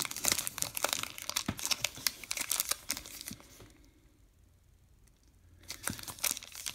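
Foil trading-card pack wrapper crinkling and crackling in the hands, possibly tearing as it is pulled. It falls quiet for about two seconds past the middle, then the crinkling starts again near the end.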